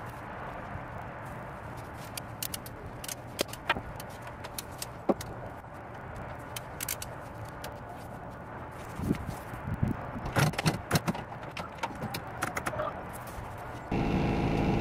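Scattered light metallic clicks and clinks over a steady low hum, with a few dull knocks about two-thirds of the way through, from work on the shifter housing of a Honda manual transmission. Near the end it cuts to a louder, steady engine hum of the car running at a high idle.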